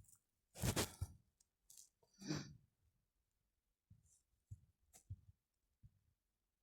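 A person breathing audibly close to the microphone, twice, followed by a few faint small clicks in a quiet small room.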